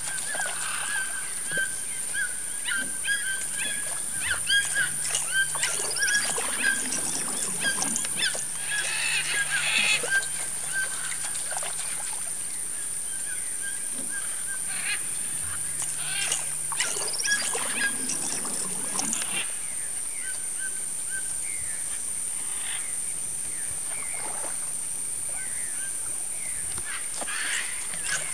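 Wild animal chorus over the lake at dusk: a steady high-pitched drone, a run of short repeated chirps, and many brief calls, busiest around a third of the way in and again past the middle.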